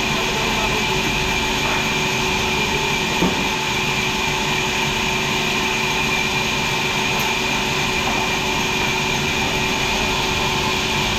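Sawmill machinery running steadily: a constant mechanical noise with several steady whining tones, with no clear cut or impact.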